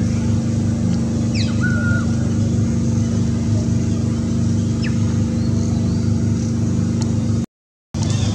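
Steady low mechanical hum, like an engine running, with a short high call that falls in pitch and levels off about one and a half seconds in. The sound cuts out for a moment near the end.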